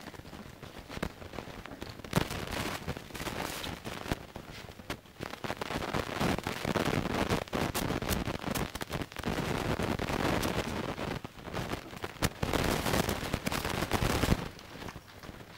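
Weimaraner puppies eating noisily from plastic bowls set on newspaper: a dense crackle of chewing, licking and paws on the paper, with sharp clicks of teeth and bowls. It grows loud about two seconds in and drops off abruptly near the end.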